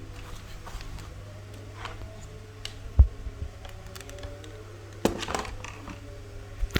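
Scattered clicks and knocks of objects being handled, with one sharp thump about three seconds in and a small cluster about five seconds in, over a steady low hum.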